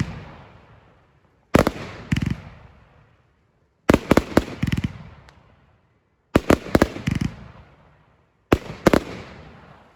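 Fireworks going off in four volleys about two and a half seconds apart. Each volley is a quick cluster of sharp bangs followed by a rumbling echo that fades out.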